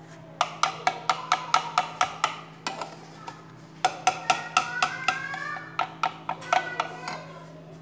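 Spoon beating a mixture in a ceramic bowl, clinking against the bowl about four times a second in three runs, each clink ringing briefly.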